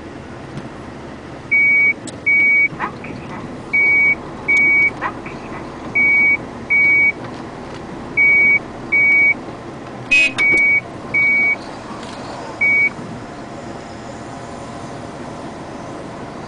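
A vehicle's reversing alarm beeping in pairs of short high beeps about two seconds apart, eleven beeps in all, stopping about thirteen seconds in, over a steady low rumble of machinery. A few sharp metallic clicks come about ten seconds in.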